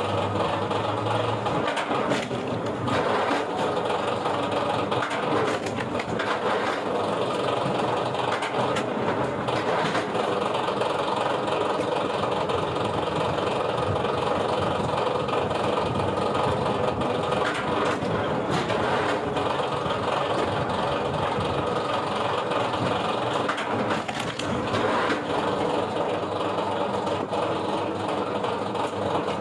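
Wood-processing machinery running steadily, with a few short knocks through the din.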